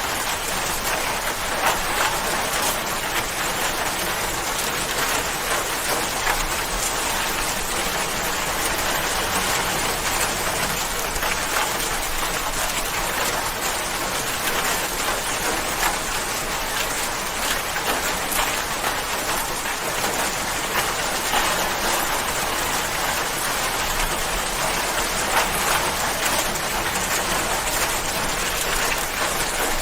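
Steady rain falling and pattering on a surface, a dense even hiss with many small drop ticks.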